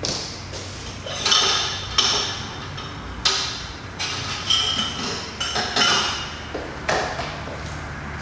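Metal objects clinking and knocking against each other, about eight sharp clatters at irregular intervals with a ringing edge: rummaging through tools in search of an old pair of scissors.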